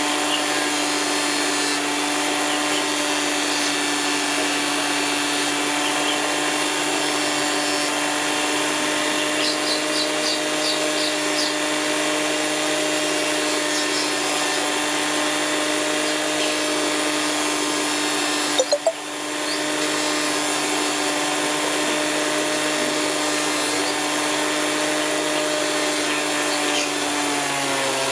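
Electric gemstone grinding and polishing machine running steadily with a constant motor hum. There are a few clicks and a brief dip in level about two-thirds of the way through, and the pitch drops slightly near the end.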